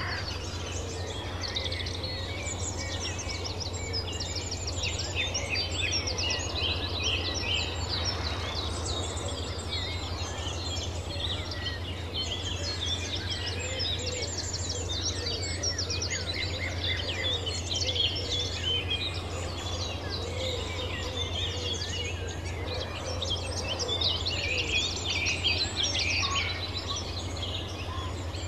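Many birds chirping and trilling at once in a busy countryside chorus, over a steady low hum.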